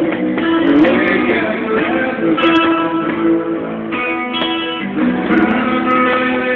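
Live band music: a guitar strummed, with a few sharp hand strokes on a cajón box drum and some long held notes.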